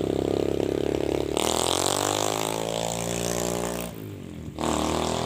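A motor vehicle's engine passing close by: a steady engine tone, then its pitch falls as it goes past from about a second in, fading a little before a short second burst of engine sound near the end.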